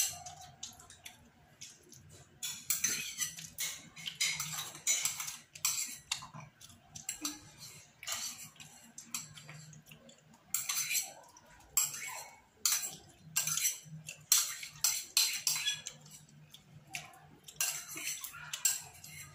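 Metal spoon scraping and clinking against a ceramic bowl in many short, irregular strokes as the last of the yogurt is scooped out.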